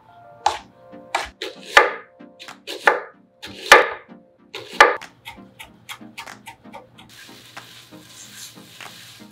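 Chef's knife chopping on a wooden cutting board, a run of sharp, irregular strikes loudest in the first five seconds. From about seven seconds a hissing sizzle of tofu cubes being tossed in a hot frying pan takes over.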